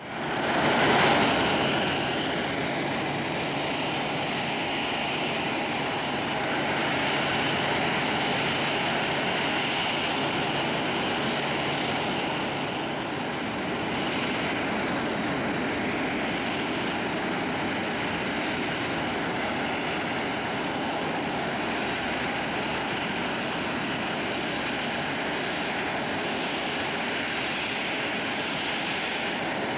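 Boeing 737-500's CFM56 turbofan engines running at idle: a steady rush of noise with a high whine over it, fading in at the start.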